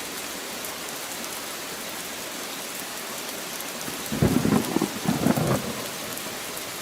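Steady rain-like hiss, with a louder low rumble in several pulses starting about four seconds in and lasting about a second and a half.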